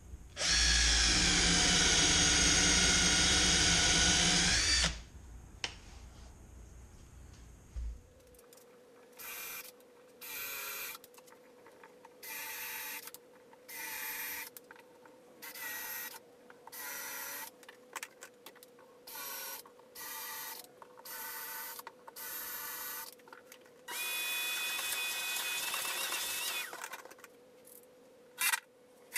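Cordless drill held in a portable drill guide, running steadily under load for about four and a half seconds as it bores countersinks into MDF. Then about a dozen short, evenly spaced drill bursts, and a second steady run of about three seconds near the end.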